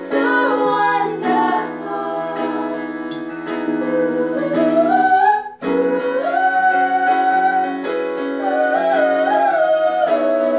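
Women singing a slow song over sustained chords on an electric keyboard. The voice slides upward and breaks off abruptly about halfway through, then comes back in with long held notes.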